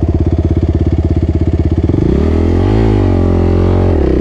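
Suzuki RMX450Z dirt bike's single-cylinder four-stroke engine chugging along at low revs with distinct firing pulses. About two seconds in the throttle opens: the revs rise, then drop back near the end.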